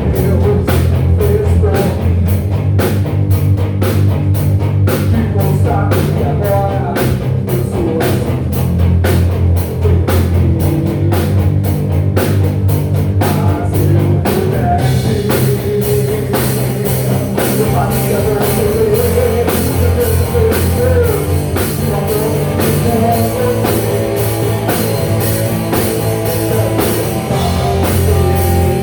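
Rock band playing live, with drum kit and guitars. The cymbals keep a steady, fast beat, and about halfway through they open into a denser, washier cymbal sound.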